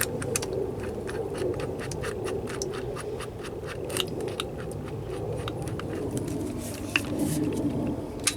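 Hand ratchet clicking in a quick, even series, about four to five clicks a second, as lug nuts are run on a car wheel, over a steady low hum.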